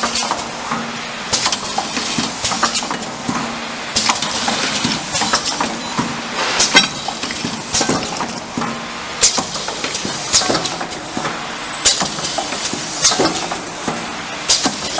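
Aluminium Nespresso-type coffee capsule filling and sealing machine running: a steady mechanical clatter, with sharp clacks from its indexing table and pneumatic actions every second or two.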